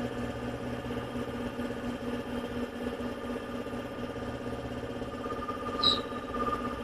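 A motor or small engine running steadily with an even, unbroken hum.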